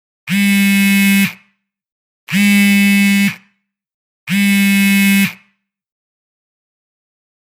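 Mobile phone vibrating: three buzzes about a second long, each followed by a second's gap, then a pause of about two seconds.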